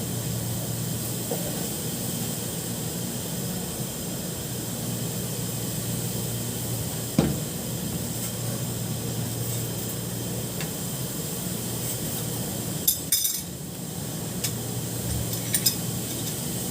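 Occasional sharp metal knocks and clinks of tools being handled, one about seven seconds in and a small cluster around thirteen seconds, over a steady low hum.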